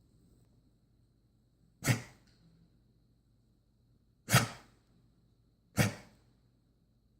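A dog's reverse coughing: three short, sharp bursts of breath, a couple of seconds apart.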